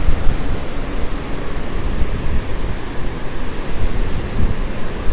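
Wind buffeting the microphone over the rush of surf on the beach and against the rock jetty: a loud, gusty rumble.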